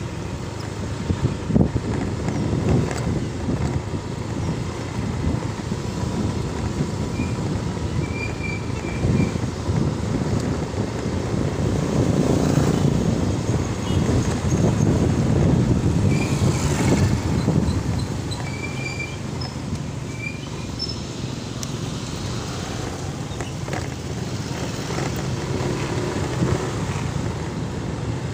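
Motorcycle running while being ridden, its engine mixed with wind and road noise. It grows louder for a few seconds around the middle.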